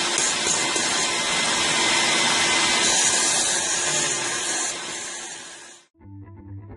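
Electric drain-clearing machine running steadily with a loud hiss and hum, fading out about six seconds in; guitar music starts just after.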